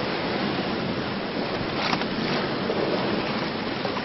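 Sailboat under way at speed: a steady rush of water along the hull with wind on the microphone, and a few brief splashes about two seconds in.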